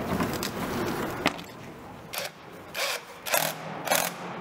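Makita 18 V cordless impact tool fastening a bolt: it runs for about the first second, then fires in four short bursts.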